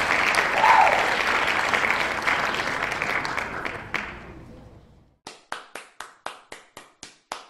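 Crowd applause that fades away over about five seconds, followed by a steady run of sharp ticks, about four a second.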